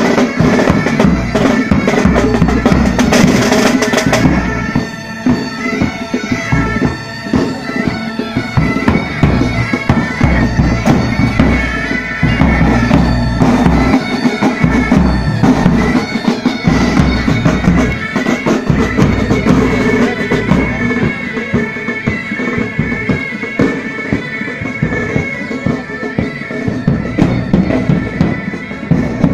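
Military pipe band playing: highland bagpipes sound a steady drone under the melody, while side and tenor drums beat time.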